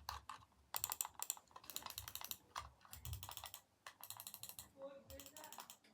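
Computer keyboard being typed on: rapid runs of keystroke clicks in bursts, with brief pauses between them.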